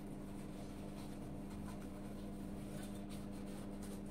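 Faint scratchy rubbing of a sponge wiped over a chrome bathroom tap, with a steady low hum underneath.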